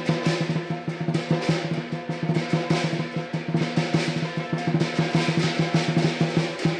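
Southern lion dance percussion: a large lion dance drum beaten in fast, driving strokes with clashing cymbals and a ringing gong.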